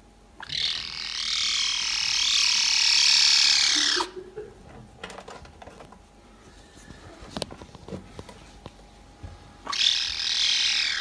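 Caracal kitten calling with a long, high-pitched, laser-like meow lasting about three and a half seconds, then a second call starting near the end that dips and rises in pitch. In between there are light knocks and scuffles as it climbs about on a plastic pet carrier.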